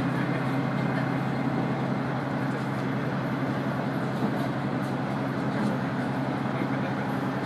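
KiHa 100 diesel railcar running along the line, heard from inside the car: a steady engine drone under the rumble of wheels on the rails.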